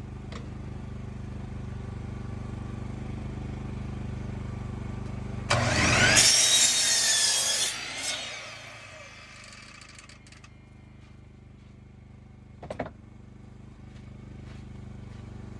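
Power saw cutting plywood: after a steady low hum, the saw cuts loudly for about two seconds, its whine sweeping in pitch, then winds down. A single sharp click comes near the end.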